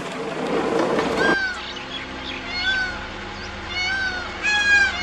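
Safari jeep driving on a rough dirt track, a rattly road noise that cuts off suddenly just over a second in. Then a bird calls over and over, short high arched calls about once or twice a second.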